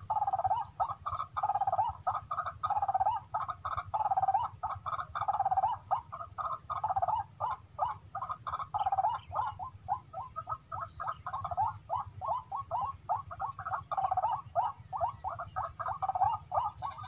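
A fast, pulsing animal call repeated in unbroken runs of several pulses a second, with a faint steady high tone above it.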